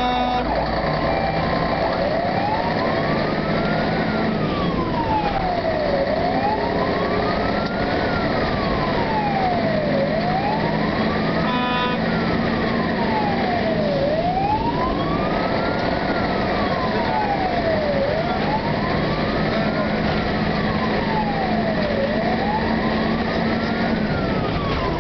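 Fire engine siren wailing, rising and falling slowly about once every four seconds, heard from inside the cab over the steady hum of the truck's engine. A short beep sounds about halfway through.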